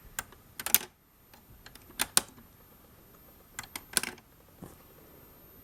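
Marbles clicking and clattering as they are put one by one into a LEGO vending machine's plastic marble compartment: sharp clicks in about four separate clusters, a second or two apart.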